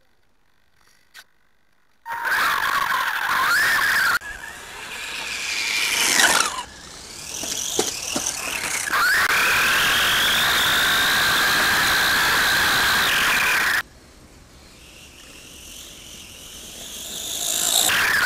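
Onboard sound of an LRP S10 Blast TX radio-controlled truggy driving off-road. Its motor and drivetrain whine high, the pitch rising and falling with the throttle. The sound starts abruptly about two seconds in and jumps in level at a few cuts.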